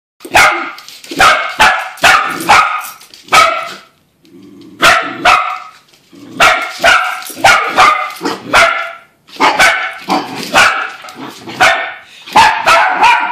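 Small dogs barking sharply over and over in quick runs of several barks, with a brief pause about four seconds in. They are barking at a toy helicopter.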